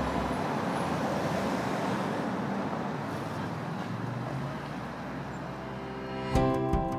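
Steady city street traffic noise, a continuous wash of passing cars with a low rumble. About six seconds in, plucked music notes come in over it.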